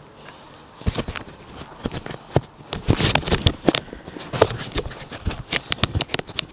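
Mountain bike and its mounted action camera clattering and rattling: a rapid, irregular run of sharp knocks starting about a second in.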